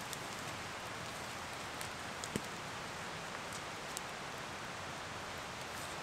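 Campfire crackling with a few scattered sharp pops, the loudest about two and a half seconds in, over a steady hiss of outdoor background noise.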